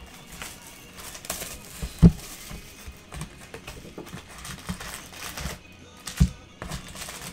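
A Donruss trading card box being opened and unpacked by hand: cardboard and wrappers rustling and crinkling, with two dull thumps, about two seconds in and again about six seconds in.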